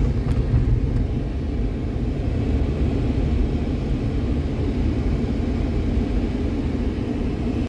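Steady low rumble of a car driving along a mountain road, heard from inside the cabin: engine and tyre noise.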